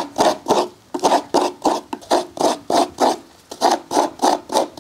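Fresh coconut half being scraped against the serrated metal blade of a bench coconut scraper: quick, rhythmic rasping strokes, about four a second.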